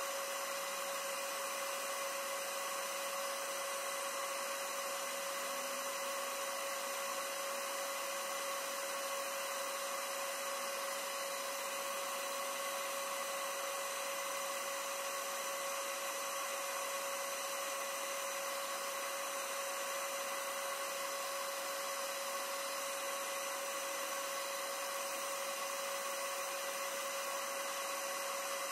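A steady machine whine with several fixed pitches over a hiss, unchanging throughout, like a small motor or fan running continuously.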